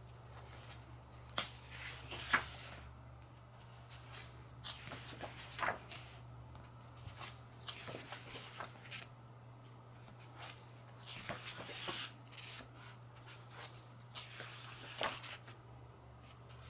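Pages of a glossy photobook being turned and handled: soft paper rustles and flips at irregular intervals, over a steady low electrical hum.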